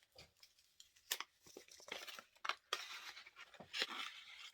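Packaging crinkling and tearing as an item is unwrapped by hand: scattered sharp crackles at first, then denser rustling from just under three seconds in until near the end.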